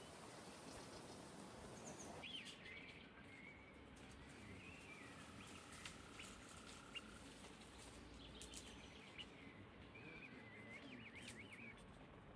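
Faint small birds chirping and warbling in short, repeated phrases over a low outdoor background hiss, which drops a couple of seconds in.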